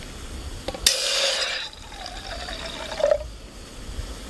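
Water poured from a plastic water bottle into a small stainless steel camping pot: a loud splashing gush about a second in, then a thinner stream with a steady note that stops about three seconds in.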